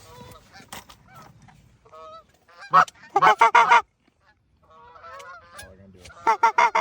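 Canada goose honking: scattered honks, then two loud runs of rapid clucking honks, one about three seconds in and one near the end.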